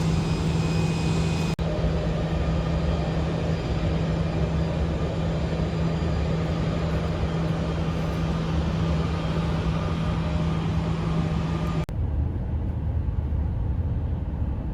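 Steady rumble of a vehicle under way, with a constant low hum. The sound breaks off abruptly twice, at about a second and a half and again near twelve seconds, and the hum drops out after the second break.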